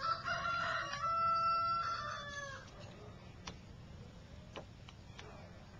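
A rooster crows once, a long call of about two and a half seconds that is held steady in the middle and falls away at the end. A few faint clicks follow.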